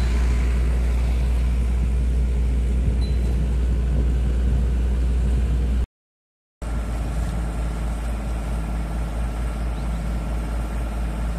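Trailer-mounted engine-driven water pump running steadily while it pumps floodwater off the road. The sound cuts out about six seconds in and starts again a moment later at a slightly lower level.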